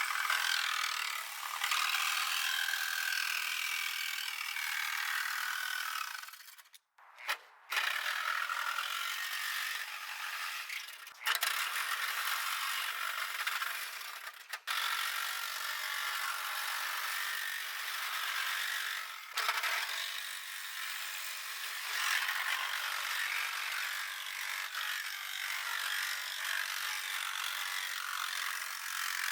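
Power tool cutting through the sheet-steel floor pans of a 1967 VW Beetle chassis: a steady rough, rasping noise with a few short breaks, the longest about seven seconds in.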